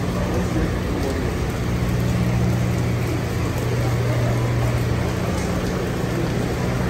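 Steady rain falling, heard as an even hiss, with a low steady hum underneath.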